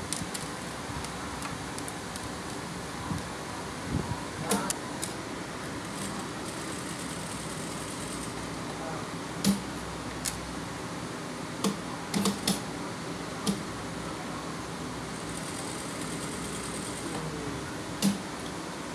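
Steady fan-like mechanical hum, with scattered sharp clicks and taps from hands handling the fabric and parts at an industrial sewing machine.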